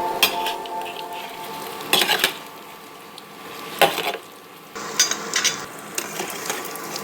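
Food frying in a pan with a light sizzle, and a utensil stirring and scraping against the pan, clinking sharply four or five times.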